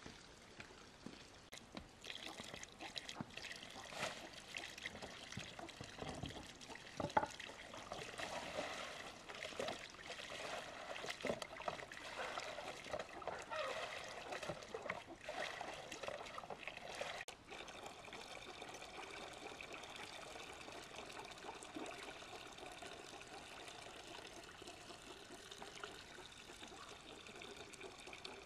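Water trickling and splashing, with scattered small clicks and knocks through the first half and a steadier, even trickle after a brief dip about two-thirds of the way in.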